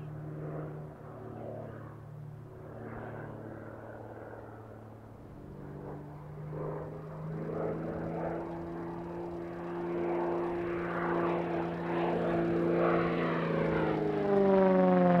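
Extra 300L aerobatic plane's six-cylinder Lycoming piston engine and propeller droning overhead. The drone grows louder through the second half, and its pitch falls near the end as the plane passes.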